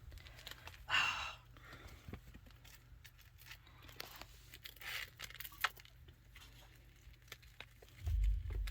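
Small animal noises of chinchillas moving about and gnawing: scattered faint clicks, scratches and crinkles, with a louder tearing rasp about a second in and another around five seconds in. A low rumble starts near the end.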